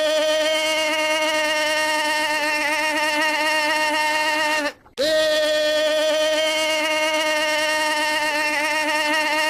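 A steady held tone on one pitch, rich in overtones and wavering slightly partway through. It cuts off abruptly just before five seconds in and starts again a moment later the same way, as a repeating loop.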